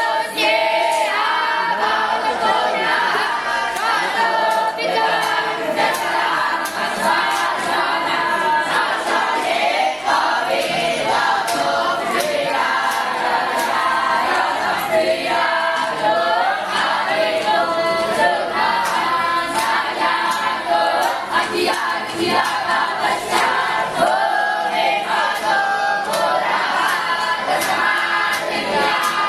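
Many young voices chanting together in unison, a group of batuk Brahmin students reciting, with overlapping voices and a crowd murmur beneath.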